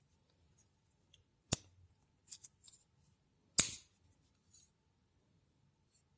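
Hard plastic clicks as a part snaps into place on a CPU cooler's plastic mounting bracket: two sharp clicks about two seconds apart, the second the louder, with a few light ticks of handling between them.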